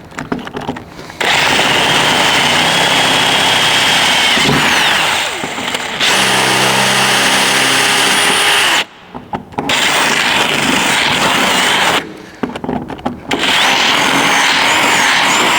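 Power drill running a 1/4 inch bit through the steel door of a 1970 El Camino to enlarge pilot holes for mirror mounting bolts. It runs in three stretches with two short stops, with a thin high whine over the cutting noise.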